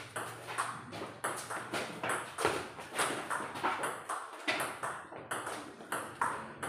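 Table tennis rally: the ball clicking in a quick, steady alternation off the bats and the table, about three hits a second.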